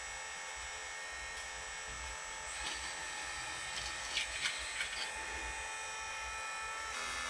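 Scale RC hydraulic excavator running with a steady electric whine from its pump motor while it digs. About midway its bucket scrapes and clicks against the dirt and concrete floor a few times.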